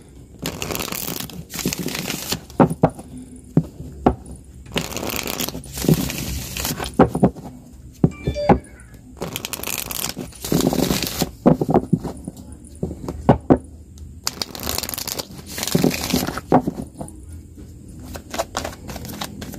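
A deck of tarot cards being shuffled by hand: repeated papery riffling rushes of about a second each, separated by short pauses, with small card clicks in between.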